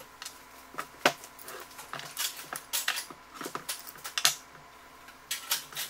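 Irregular metallic clinks and clicks as the bolts holding a turbocharger's exhaust turbine housing are undone and the metal parts are handled.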